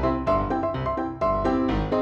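Background music: a keyboard melody of repeated piano-like notes over a low bass line.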